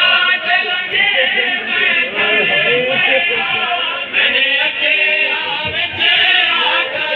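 Many men's voices singing a mourning chant together, loud and continuous.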